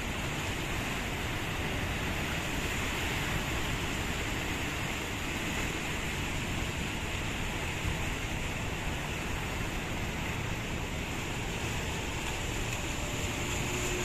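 Steady rush of ocean surf and wind, even throughout with no distinct events.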